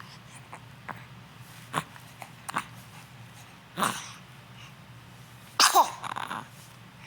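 A single sharp sneeze about five and a half seconds in, with a pitch that falls as it goes and a short fainter sound just after it. A few brief quiet sounds come before it.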